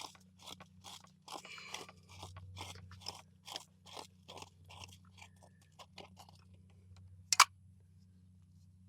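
Pliers gripping and twisting a PVC coupling on a threaded metal water pipe: a run of short crunching scrapes, about two or three a second, then one sharp snap a little past seven seconds in.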